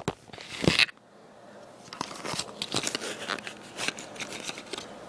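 Hands handling small plastic case accessories and their packaging: a few knocks in the first second, then a run of light clicks and crinkling.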